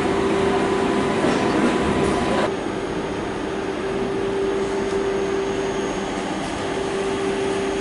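Electric Intercity 2 train with its Class 146 locomotive at a station platform, giving a steady hum over a noisy background. The sound changes abruptly about two and a half seconds in.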